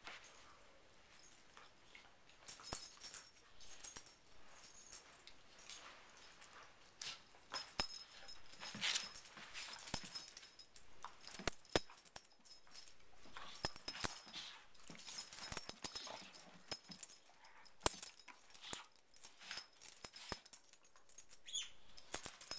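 Two dogs, one a border collie, play-fighting: irregular scuffling and mouthing noises with scattered sharp clicks, busier from about a third of the way in.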